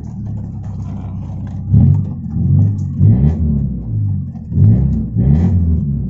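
Toyota Corolla AE92 engine idling steadily, then revved in about six quick throttle blips from about two seconds in, after its carburettor and air-conditioning idle-up have been tuned.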